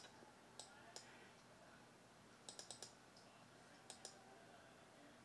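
Faint clicks of a computer mouse: scattered single clicks, and a quick run of four about two and a half seconds in.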